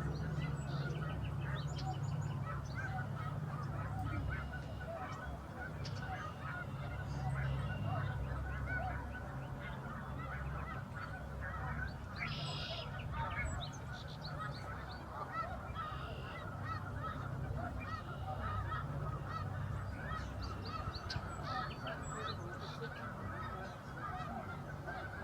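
A large flock of migrating geese calling all together: a dense, continuous chorus of overlapping honks, over a steady low rumble.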